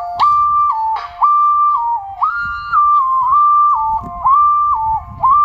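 A loud tune played in one pure, whistle-like tone that jumps abruptly between a few held notes, up and down in a repeating pattern.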